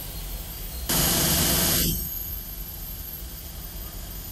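Steady low hum, broken about a second in by a loud hiss lasting about a second that starts and cuts off sharply.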